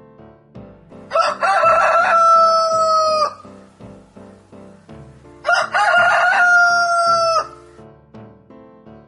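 A rooster crowing twice, each crow about two seconds long, over soft background music.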